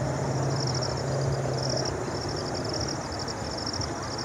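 Insects chirring in high-pitched pulsed bursts, each well under a second long and repeating every second or so, with a low steady hum underneath that fades out about two seconds in.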